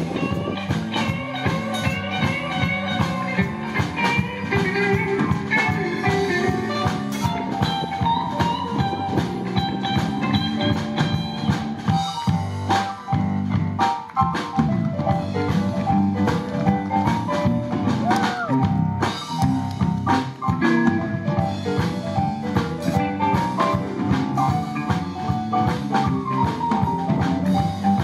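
Live blues shuffle played by a band with no singing: Kurzweil stage piano, electric guitar and drum kit keeping a steady shuffle beat.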